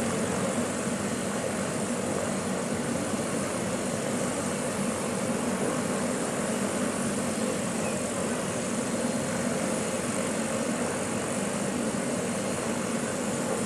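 Helicopter turbine engine running steadily on the ground, a constant whine and rush with no change in pitch.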